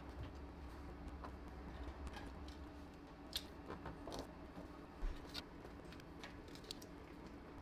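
Faint crinkling and light taps of aluminium foil tape being handled and pressed over a crack in a plastic car bumper, with a few short clicks scattered through and a low steady hum underneath.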